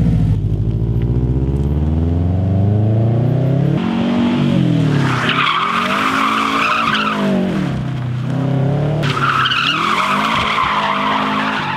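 Car engine revving up and down hard as the car is slid through a turn, with the tyres squealing twice, each time for about two seconds, starting about five and nine seconds in.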